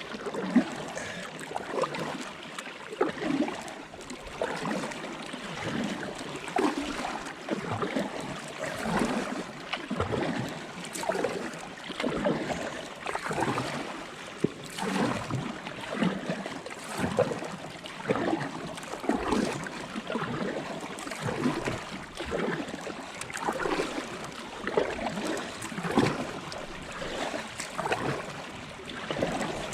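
Kayak paddle blades dipping and pulling through water in a steady rhythm, one swishing stroke a little more than a second apart, with water washing along the hull.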